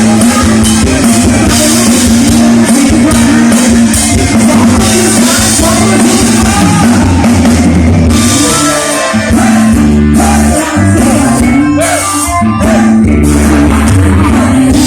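Loud band music with drum kit, bass and guitar, with a singer's voice carrying the melody.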